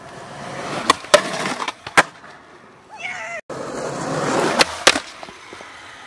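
Skateboard wheels rolling on asphalt, growing louder as the board approaches, then sharp clacks of the board popping and striking the ledge and ground. This happens twice.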